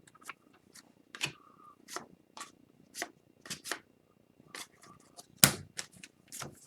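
Trading cards being handled and flipped one at a time: a string of light card clicks and slides, about two a second, the sharpest a little past five seconds in.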